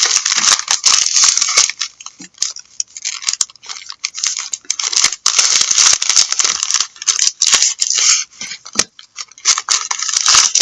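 Trading-card packs and cards being handled by hand: irregular crinkling, rustling and small clicks of wrappers and card stock.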